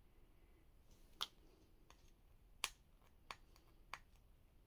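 Four sharp clicks from the phone and its packaging being handled, the first two louder, spaced about a second apart, over quiet room tone.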